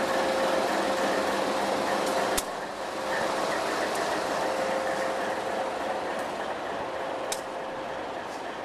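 Diesel locomotive engines idling: a steady running noise with a held tone through it. A sharp click comes about two and a half seconds in, after which the sound is a little quieter, and another click comes near the end.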